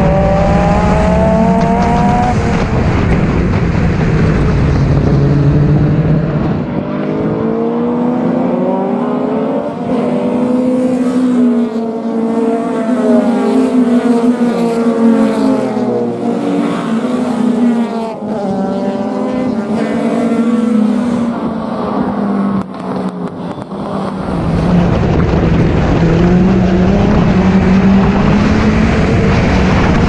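Race car's engine running hard on track, its pitch climbing under acceleration and dropping back repeatedly as it shifts and lifts for corners.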